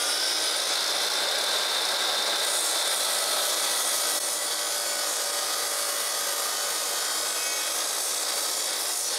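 Miter saw running at full speed, its blade lowered partway into a wooden wainscot cap molding for a stopped cut. The motor whine is steady, and a harsher cutting noise joins in about two and a half seconds in.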